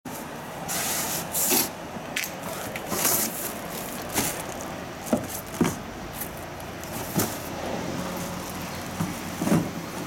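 Cardboard box and plastic wrapping rustling as fan parts are pulled out, with several light knocks as the parts are set down on a plywood board; a steady hum of street traffic runs underneath.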